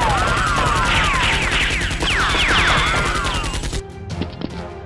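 Rapid automatic gunfire sound effects with swooping whizz and ricochet sounds, dubbed over a toy-blaster shootout. The firing cuts off suddenly near the end, leaving faint background music.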